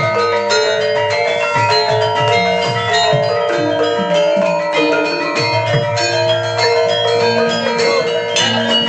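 Javanese bronze gamelan being played, with bonang kettle gongs struck with mallets in quick runs of ringing pitched notes over sustained lower gong tones. This is the sound of a gamelan maker's newly tuned set.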